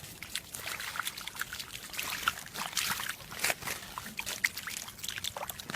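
Water trickling and splashing: many small, irregular drips and splashes.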